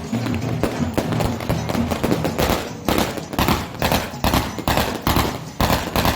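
Fireworks going off in a rapid, irregular string of sharp bangs, growing denser about halfway through, with wedding music faintly underneath at the start.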